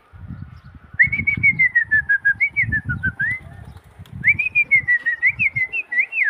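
A person whistling to a flock of flying pigeons to call them in: a high, warbling, trilled whistle in two phrases, the first about a second in and the second after a short pause.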